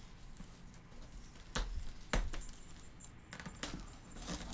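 Light handling noise of plastic wrap being picked and pulled off a cardboard box, with a few sharp clicks and crackles, the strongest two about half a second apart near the middle.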